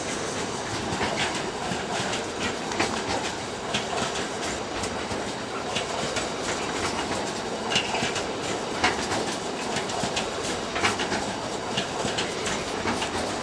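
Double-deck car-carrier wagons of a long train rolling past close by: a steady rumble of steel wheels on the rails, broken by repeated sharp clacks as the wheelsets pass.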